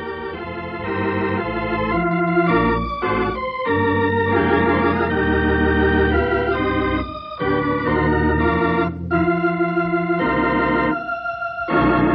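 Organ music playing a run of held chords that change every second or so, with a few short breaks, as the radio drama's closing music; near the end a louder chord comes in with a steady tremolo waver.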